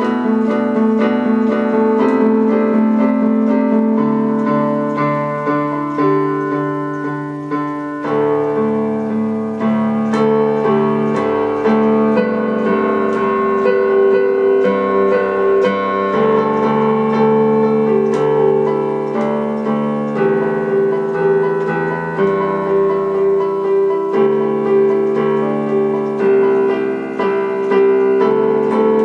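Background piano music: a steady stream of keyboard notes and chords in a regular rhythm.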